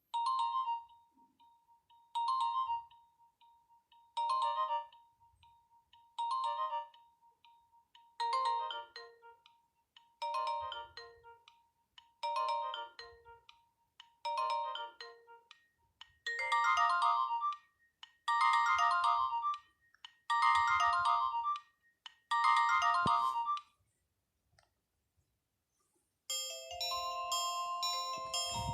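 Nokia 1600 mobile phone ringtone: a short electronic phrase repeating about every two seconds, with more notes joining in about eight seconds and again about sixteen seconds in. After a brief pause near the end, a different ringtone of quick chiming notes starts.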